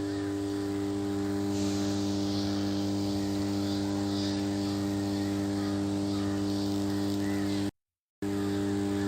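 Extra-high-voltage power transformer humming steadily: one low hum with several steady overtones above it, the core vibrating by magnetostriction at twice the mains frequency. The sound cuts out completely for about half a second near the end, then returns unchanged.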